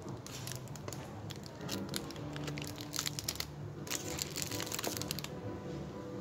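Plastic wrapping on gift tins crinkling and crackling as they are picked up and handled, densest about four seconds in, over background music with held notes.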